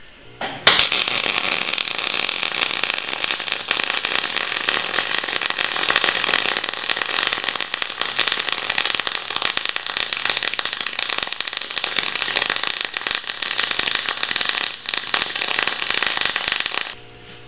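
MIG welding arc crackling through one long bead. It strikes sharply about a second in, falters briefly near the end and cuts off when the trigger is released. The welder is running high voltage for spray transfer, which he finds not quite there yet.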